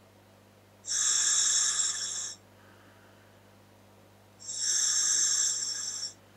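Breathing through a scuba regulator fitted to a Dräger full-face mask: two rushes of airflow hiss, each about a second and a half long, one about a second in and one near the end.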